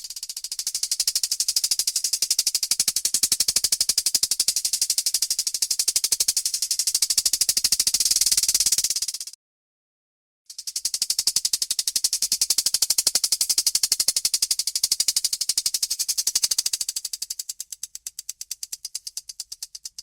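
Rattlesnake shaking its tail rattle in a fast, high, dry buzz, a defensive warning. It comes in two long bouts with a pause of about a second between them. Near the end the second bout slows into separate clicks and fades.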